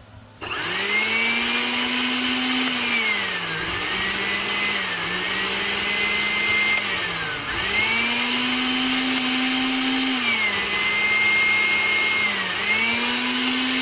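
Blender motor with a freshly rewound armature, switched on about half a second in and running at high speed under test. Its whine drops in pitch and climbs back several times. It keeps running steadily, a sign the rewind works.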